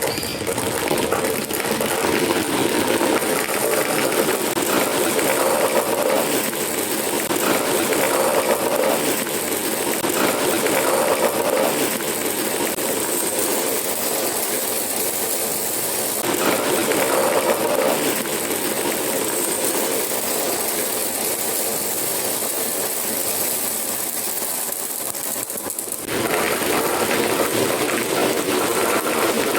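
Marbles rolling and clattering along a homemade marble run track, a continuous dense rattle with a short lull near the end before it picks up again.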